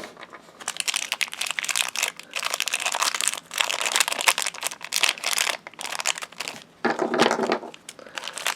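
Crinkly plastic toy packaging being handled and torn open, a continuous run of crackling with short pauses.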